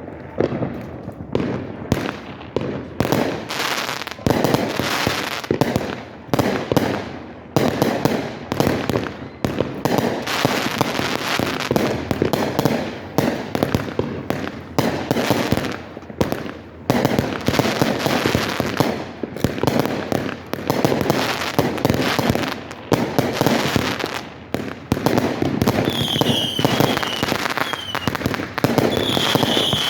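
Fireworks display: a dense, continuous barrage of bangs and bursts, one after another with almost no gaps, with a few short high squeals near the end.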